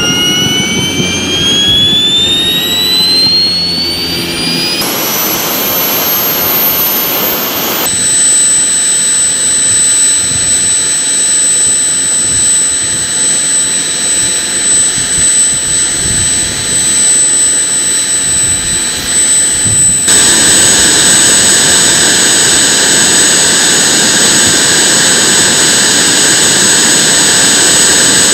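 Small PBS TJ40 turbojet engines on a ground run: a whine rising in pitch as they spool up, then a steady high-pitched whine with a rushing roar. The sound grows louder and fuller about two-thirds of the way in as power is brought up toward the 20% thrust that makes the light airframe start to roll.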